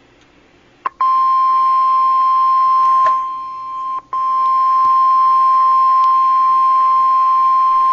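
NOAA Weather Radio 1050 Hz warning alarm tone: a single loud, steady tone that starts after a click about a second in. It sags a little and cuts out for an instant about four seconds in, then carries on. It signals that a severe thunderstorm warning message follows.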